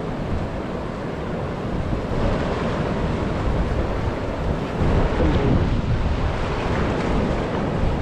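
River water rushing and spilling over a low check dam and its rocks in a steady wash of noise, which grows louder about two seconds in. Wind buffets the microphone underneath.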